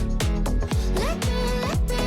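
Background pop music with a steady beat, a deep kick drum and a gliding synth or vocal melody.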